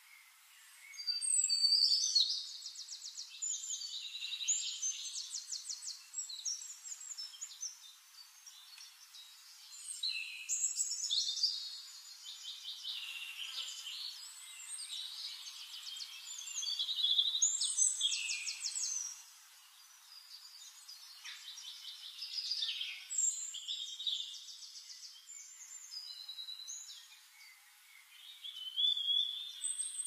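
Songbirds singing: phrases of fast trilled, chirping song that come every few seconds, with quieter gaps between.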